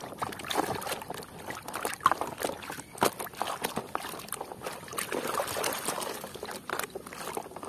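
Muddy water sloshing and splashing in a basin as a hand swishes a plastic toy truck back and forth through it, an uneven run of splashes and swishes.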